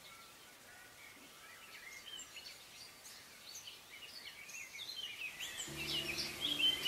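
Many small birds chirping over a faint hiss of outdoor ambience, the chirping growing louder. Near the end a low, held music chord comes in under the birdsong.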